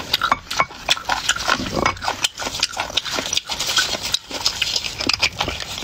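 Close-miked wet eating sounds: chewing and slurping soft beef bone marrow, with many irregular smacks and clicks, and a metal spoon scraping inside the marrow bone.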